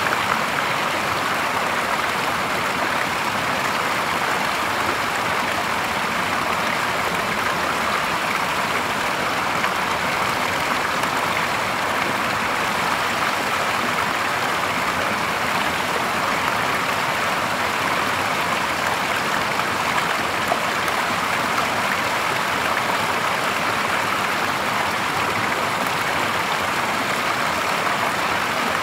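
Clear stream water spilling a short drop over a log into a shallow pool: a steady splashing rush of falling water, unchanging throughout.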